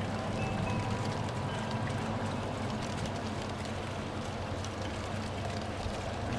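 Steady rumble and hum of a train running along the track, with no break or sharp event.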